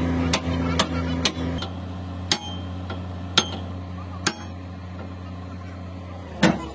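Hammer blows on steel at an excavator's track chain, about seven sharp strikes with a short metallic ring: three quick ones, then slower single blows, as a link pin is driven down into a steel sleeve. A steady engine hum runs underneath.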